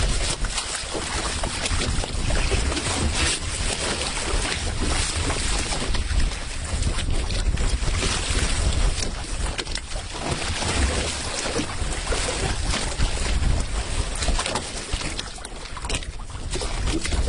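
Wind buffeting the microphone: a steady, noisy rush with a heavy low rumble that rises and falls in gusts.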